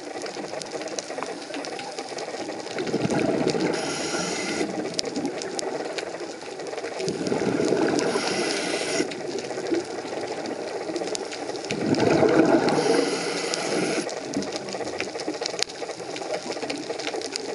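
A diver's scuba regulator heard underwater: an exhaled rush of bubbles with hissing breath about every four and a half seconds, three times, a fourth starting at the end, over a constant fine crackle of clicks.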